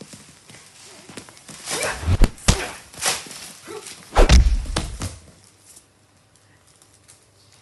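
Staged fight hits: a quick run of thumps and swishes, the loudest about four seconds in, ending a little past five seconds.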